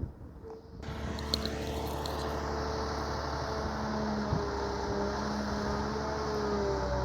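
Excavator's diesel engine running steadily under load, with a low hum and a slightly wavering whine. It comes in abruptly about a second in.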